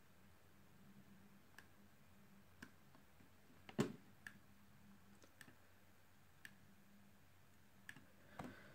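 Scattered single clicks from the laptop being used to step from one image to the next, roughly one a second and the loudest about four seconds in, over a faint low hum.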